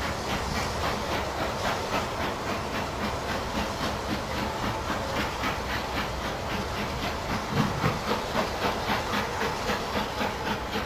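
Canadian Pacific 2816, a 4-6-4 Hudson steam locomotive, working away with its passenger train: hissing steam with an even rhythmic chuff of about four beats a second. There is a brief low thump about seven and a half seconds in.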